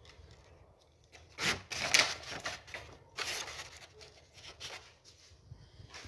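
Rustling and rubbing from hands handling the wires, wall switch and a paper sheet during a smart-switch installation, in several irregular bursts, loudest from about one and a half to two and a half seconds in and again about three seconds in.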